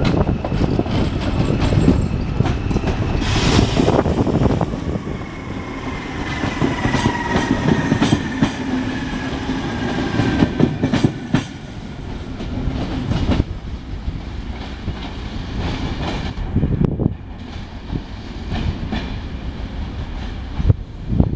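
Regional electric passenger train running past on the station tracks, its wheels clattering over rail joints and points, with a faint whine falling in pitch as it goes by.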